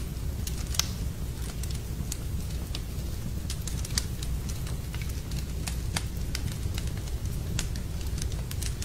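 Wood fire crackling in a fireplace: irregular sharp pops and snaps over a steady low rumble, the loudest pops about a second and about four seconds in.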